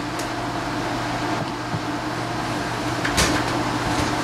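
Steady mechanical hum with a low tone, like a fan or air conditioner running, with a single soft knock about three seconds in.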